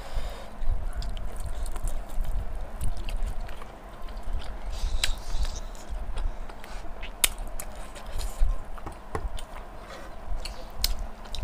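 Chewing and eating sounds of pork and rice eaten by hand, with many scattered sharp clicks and soft taps of fingers and food on a wooden platter.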